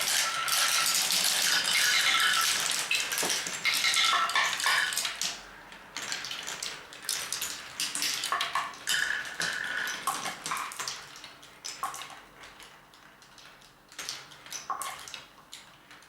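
Glass marbles rolling and clacking through a wooden Quadrilla marble run. A dense clatter for about the first five seconds thins out into scattered clicks and short rings that grow fainter toward the end.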